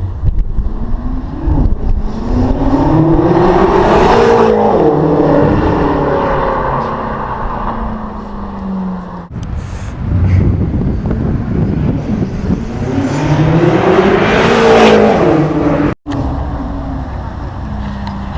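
BMW M5 F10's twin-turbo V8 through an Akrapovič exhaust, accelerating hard. The engine note climbs to a peak and falls away, then does so again after a break.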